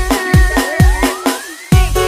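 Electronic dance music with a heavy bass-drum beat, about three kicks a second, and a synth line that sweeps upward before a short drop near the end.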